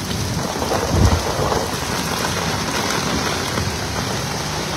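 Heavy rain falling steadily, with a short, deep rumble about a second in.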